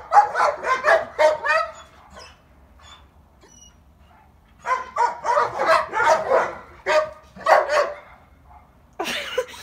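Dogs barking in quick runs of short barks while trying to get the dog next door to play: one run at the start, a longer one from about five to eight seconds in, and a short burst near the end.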